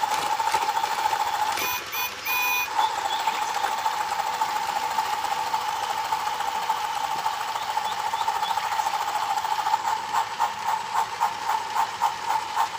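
Toy train playset's battery motor and plastic gearing running with a steady whir and fine rattling as its moving pieces go round. Two short electronic beeps come about two seconds in. From about ten seconds a regular clatter of roughly three beats a second sets in.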